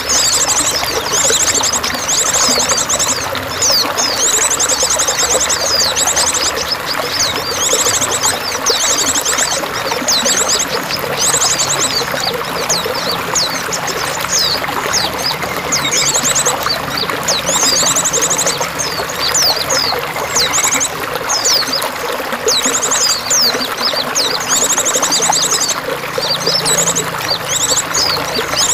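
Steadily running, trickling water, with songbirds chirping and giving repeated rapid, high trills over it.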